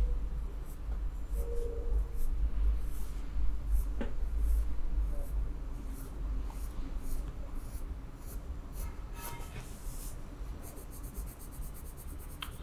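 Red colored pencil scratching on sketchbook paper in quick short strokes, about two a second, drawing fine strands of hair, over a low steady hum.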